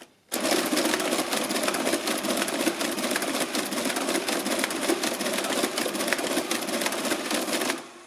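Marchant ACT-10M electric mechanical calculator running an automatic division: motor and gear works clattering rapidly and steadily as the carriage shifts across, starting a moment in and stopping abruptly near the end when the division is complete.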